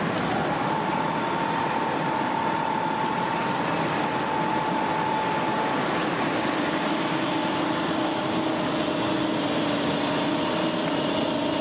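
Steady loud rushing noise with a faint machine hum under it.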